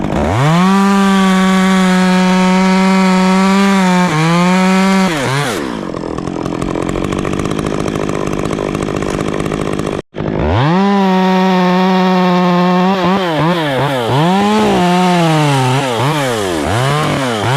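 Stihl two-stroke chainsaw revving at full throttle for about five seconds, then dropping away to a quieter stretch. After a sudden break about ten seconds in, it revs again, with the engine pitch dipping and recovering several times as the chain bites into the wood.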